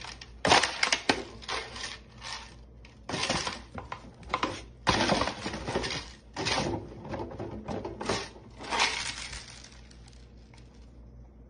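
Dry dog kibble rattling and clattering onto a hardwood floor as a dog paws it loose, in irregular bursts that die away about ten seconds in.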